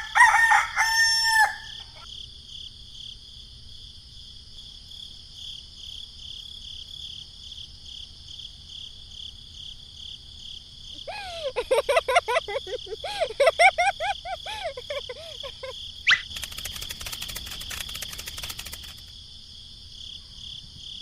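A rooster crows once at the start, and chickens call in a run of short wavering clucks from about eleven to sixteen seconds in. Steady, pulsing insect chirring runs throughout, and a rapid run of clicks comes near the end.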